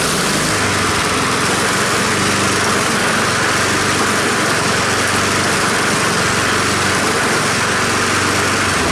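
Honda HRN216 lawn mower's single-cylinder four-stroke engine running steadily just after being pull-started, driving the mower forward on its self-propel with a newly replaced drive belt. The engine cuts off right at the end.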